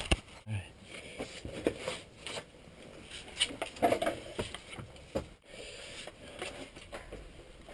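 Scraping and scuffing of gear and clothing against rock as a caver squeezes through a narrow rock passage, with scattered knocks and clicks throughout.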